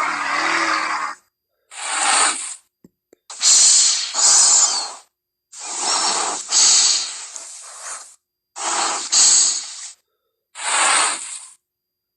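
Minotaur creature sound effects: about six harsh, unpitched hisses and snorts, each one to two and a half seconds long, some with a double surge. They are spliced together with dead silence between them.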